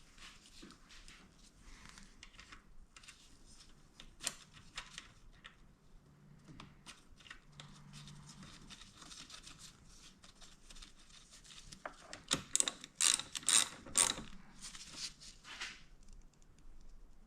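Ratchet wrench clicking in short runs as cam gear bolts are run in, with small metal clinks between. The clicking is loudest and fastest in the last third.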